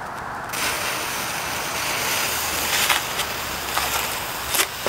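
A lit firecracker fuse catching about half a second in, then hissing steadily and spitting sparks, with sharp crackles partway through and a few sharp pops near the end.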